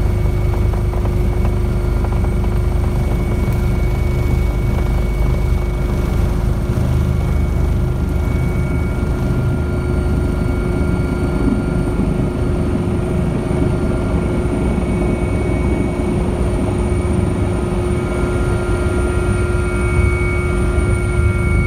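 Rescue helicopter heard from inside the cockpit on its landing approach: steady engine and rotor noise with a high, even whine.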